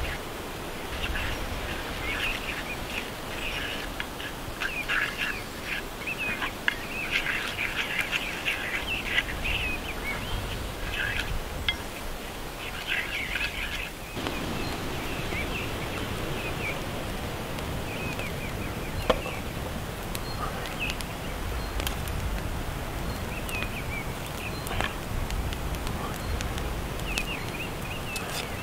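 Small birds chirping and calling over a steady outdoor background hum. The chirps come thick in the first half and thin out after the middle, with a few sharp clicks.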